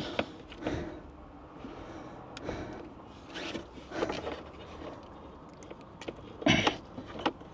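Intermittent scrapes, rubs and knocks of hands fitting battery cables onto the terminals of an AGM leisure battery inside a wooden battery box. The loudest comes about six and a half seconds in.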